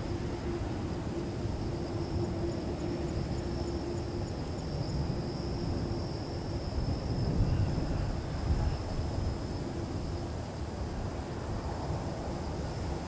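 Distant low rumble of a Boeing 777-200ER's jet engines on final approach, swelling a little past the middle, under a steady high insect drone from the grass.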